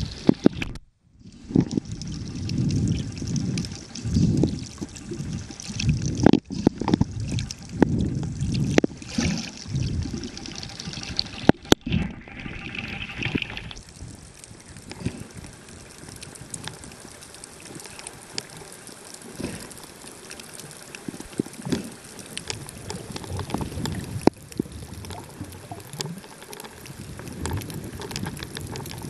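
Muffled water noise picked up by a camera underwater: irregular swishing surges and a few sharp clicks during the first dozen seconds, then a quieter, steadier wash.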